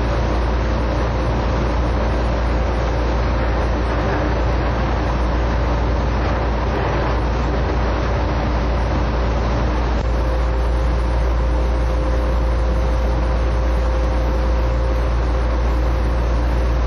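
Taipei Metro train running through a tunnel, heard from inside the car: a loud, steady rumble of wheels and rails, with a faint steady tone running under it.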